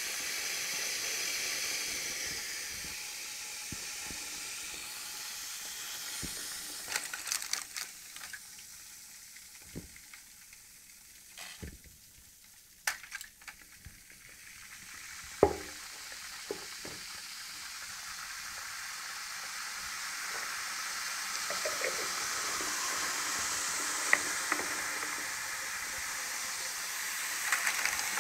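Aluminium foil reacting violently with concentrated sodium hydroxide, fizzing and sizzling steadily as hydrogen bubbles off. The hiss dies down about halfway through and builds again toward the end, with a few sharp pops and clicks scattered through it.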